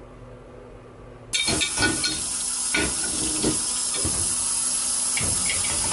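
Kitchen faucet turned on about a second in, water running steadily into the sink, with dishes and glasses knocking and clinking in it.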